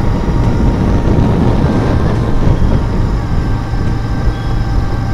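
Vehicle under way on the road: steady engine, tyre and wind noise.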